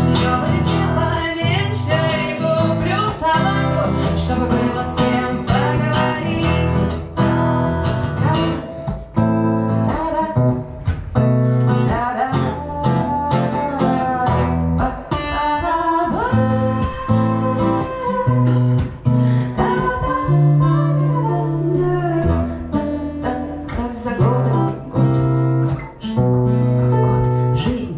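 Acoustic guitar playing a song live, with a woman's voice singing over it.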